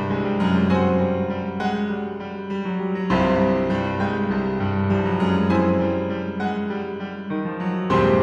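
Solo piano music: a slow piece with a melody over held low chords, with fresh chords struck about three seconds in and again near the end.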